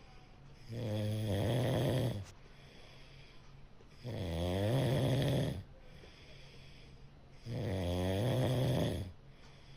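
Domestic cat snoring in its sleep: three slow snores, each about a second and a half long, about three and a half seconds apart.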